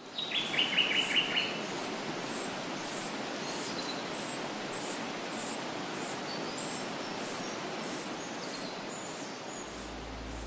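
Outdoor nature ambience: a high, short chirp repeats evenly about twice a second over a soft hiss, with a brief bird trill in the first second or two. Music with low sustained tones comes in near the end.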